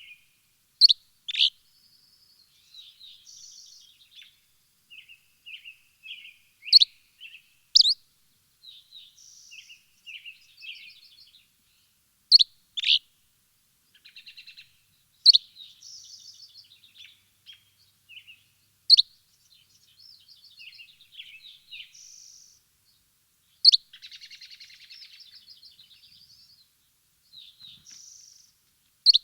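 Songbirds chirping and twittering, with loud sharp chirps every few seconds over quieter trills and warbles.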